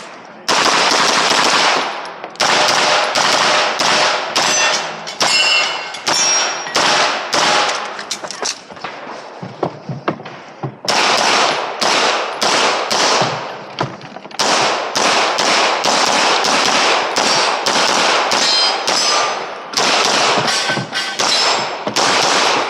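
Pistol shots fired in quick pairs and strings during a timed competition stage, with a short break of a second or so about ten seconds in before the shooting resumes.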